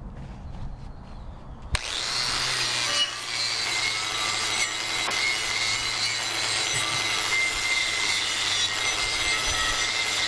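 Wire brush cleaning slag off a fresh flux-core weld on steel plate. After a low hum, the brush bites onto the metal about two seconds in and scrubs steadily, with a high steady whine over the scratching.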